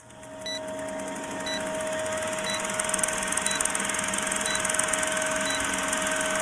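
Film-projector countdown sound effect: the steady whir and rattle of an old film projector, with a faint short tick about once a second as the numbers count down.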